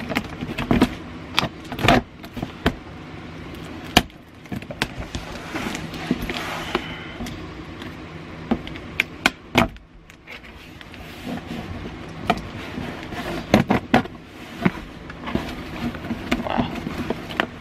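Packing tape being cut with a key and peeled off a cardboard box: irregular crackling, tearing and scraping, with many sharp clicks and taps on the cardboard.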